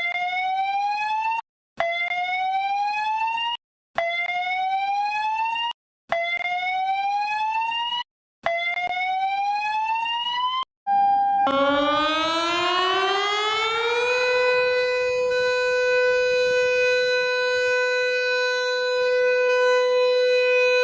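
Electronic siren of an Emergency Alert System-style alarm: five short rising whoops of about a second and a half each, a brief steady beep, then a slow rising wail that levels off into a long steady tone.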